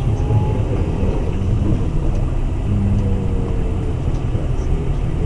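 Road and engine noise of a moving car heard from inside its cabin: a steady low rumble.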